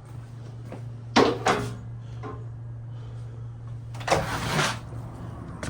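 A steady low motor hum, with two brief noisy bursts, one about a second in and one about four seconds in.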